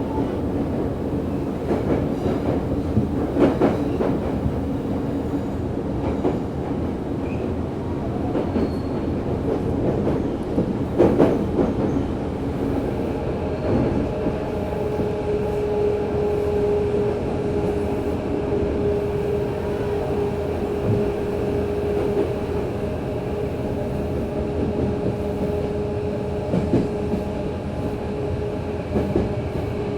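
Running noise inside a Tokyo Metro 03 series subway car with a VVVF-renewed drive: steady wheel-and-rail rumble with a few rail-joint clicks in the first half. A steady tone comes in about halfway and holds.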